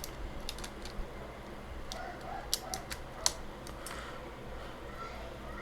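Plastic keycaps being handled and pressed onto a computer keyboard's switches: scattered sharp clicks, with one louder snap about three seconds in.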